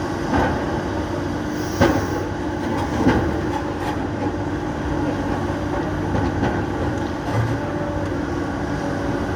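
Excavator diesel engines running steadily, with a few sharp knocks of rock striking rock, the clearest about two and three seconds in.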